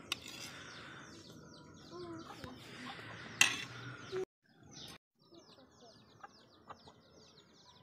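Small birds chirping busily with quick, repeated downward-sweeping chirps, and a hen clucking now and then in the first half. A single sharp knock comes a little over three seconds in, and the sound briefly cuts out around the middle before the chirping carries on more faintly.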